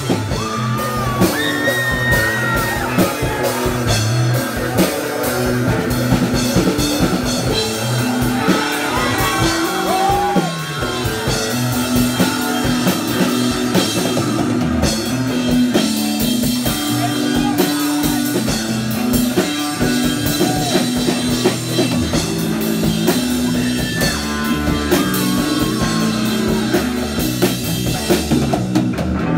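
Live punk rock band playing loud: distorted electric guitars, bass and drum kit, with a steady repeating bass line.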